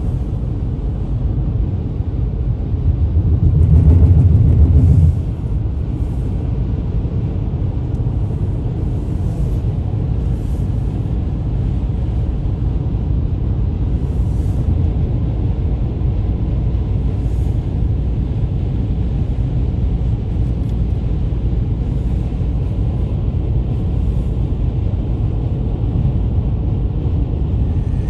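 Steady road and engine rumble of a car driving on the highway, heard from inside the cabin, with a louder low rumble swelling for about two seconds a few seconds in.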